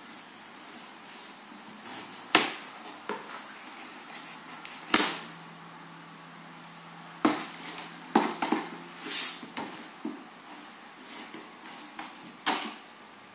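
Plastic strapping bands around cardboard boxes being cut with a knife and pulled off, the boxes handled on a wooden floor: a run of sharp snaps and knocks, the loudest about two, five and twelve seconds in, with softer rustling of cardboard and strap between them.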